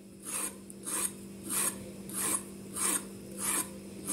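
Fork tines scraped lengthwise along the skin of a raw zucchini to score it, a short rasping stroke repeated about every two-thirds of a second, six or so times.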